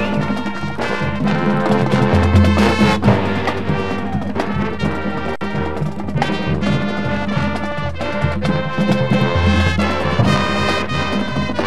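High school marching band playing its field show: sustained brass chords over drum hits.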